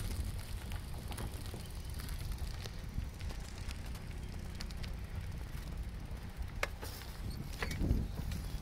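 Bicycle towing a kayak, rolling along asphalt: a steady low rumble, with a few sharp clicks and a louder knock near the end.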